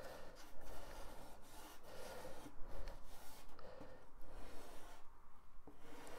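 Pencil scratching in short, repeated strokes as it traces along the edge of a paper template onto a Styrodur extruded polystyrene foam board.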